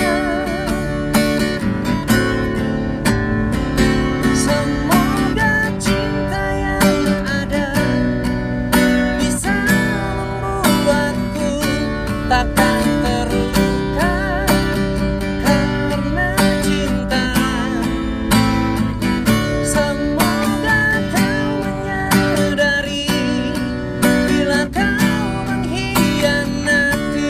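A man singing a song with a wavering melody while strumming chords on an acoustic guitar.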